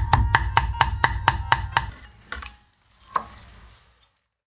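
Cleaver chopping pickled wild chillies on a wooden chopping block, a steady rhythm of about four strokes a second that stops about two seconds in. Two lighter single knocks follow, then it goes quiet.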